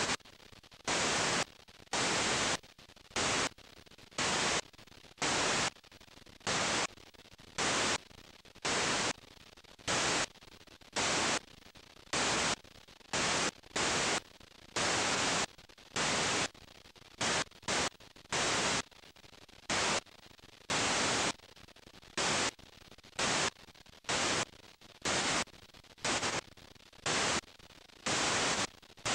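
Static hiss from a blank stretch of videotape playing back. Loud bursts of hiss, each a fraction of a second long, cut in about once a second at uneven gaps over a fainter steady hiss.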